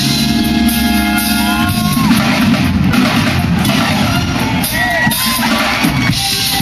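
Live band playing loud amplified music through a PA, with vocals.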